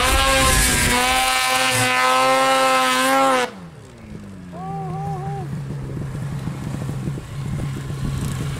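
Snowmobile engine revving hard at high, slightly wavering revs; about three and a half seconds in the revs drop suddenly and fall away, and the engine settles to a quieter, steady low running.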